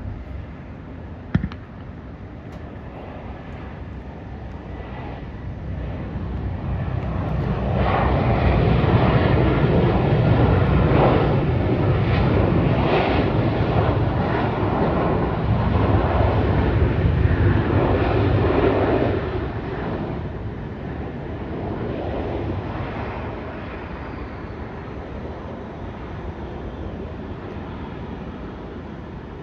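Airbus A320 jet engines on landing: a sharp knock about a second in, then the engines spool up loudly for about twelve seconds and wind back down, the pattern of reverse thrust as the plane slows on the runway.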